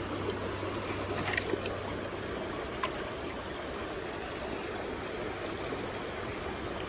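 Shallow river water running and swirling around a plastic gold pan as it is dragged through to scoop gravel, with two sharp clicks about a second and a half and three seconds in.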